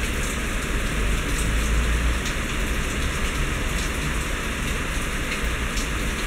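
Steady background noise: an even hiss with a low rumble underneath and faint scattered ticks.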